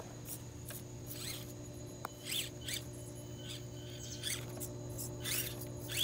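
SCX24 micro RC crawler's drivetrain whining in short high-pitched squeals, each rising and falling with a throttle blip, about ten of them irregularly spaced as it crawls over rocks.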